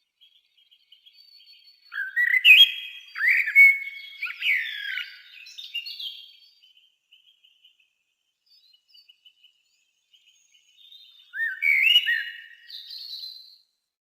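A thrush singing: loud, varied whistled phrases that rise and fall, in a run starting about two seconds in and another near the end. Faint high chirping carries on underneath.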